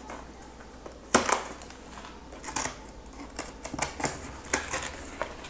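Hands working at the packing tape on a cardboard box and a utility knife slitting it open: a run of sharp clicks and short scrapes, the loudest about a second in.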